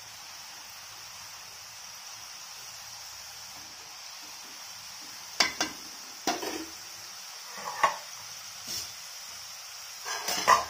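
Freshly dropped murukku dough deep-frying in hot peanut oil, a steady sizzle of hard bubbling. From about halfway there are several sharp knocks and clatters of a utensil against the pan, loudest near the end.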